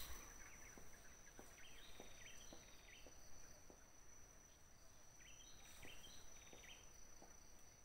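Faint outdoor ambience: two short runs of high bird chirps, one about a second and a half in and one past the five-second mark, over a steady high-pitched whine and a few faint clicks.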